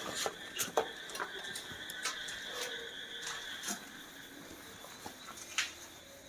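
Marker pen writing on a whiteboard: squeaky strokes with sharp taps of the tip against the board, the loudest taps about a second in and near the end.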